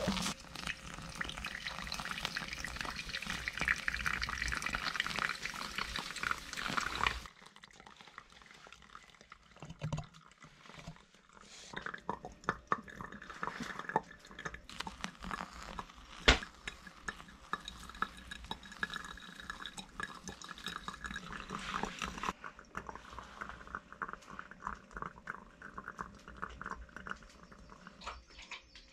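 Water poured in a steady stream onto ground coffee in a paper pour-over filter, lasting about seven seconds and stopping abruptly. Then come scattered soft ticks and drips, with one sharp click about halfway through.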